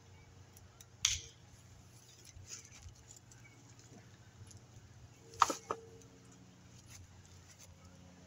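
Hand pruning shears snipping at a Dracaena: one sharp snip about a second in, then two quick snips close together about five and a half seconds in.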